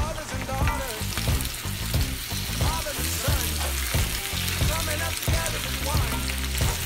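Sliced potatoes frying in oil in a pan, a steady sizzle with short scrapes and clicks as they are stirred and turned. Music with a bass line plays underneath.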